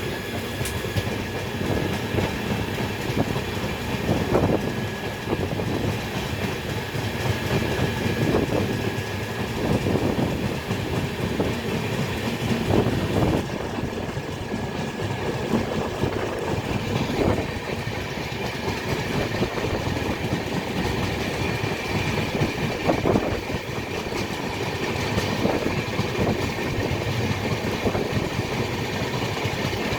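Train running on the rails: a steady rumble of wheels on track, with a clattering knock every few seconds.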